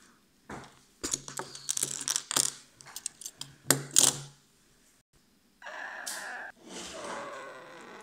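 Small plastic toy bricks clicking and clattering on a hard tabletop as they are handled and knocked about by a toy car, a rapid run of sharp clicks for about four seconds. After a short pause, a drawn-out pitched call-like sound starts about two thirds in and begins to fall in pitch near the end.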